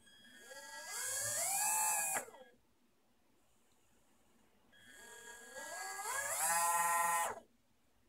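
Small brushed DC motors, driven from a thumb joystick through an Arduino, whining up in pitch as they speed up and then stopping abruptly. This happens twice: once near the start and again about five seconds in.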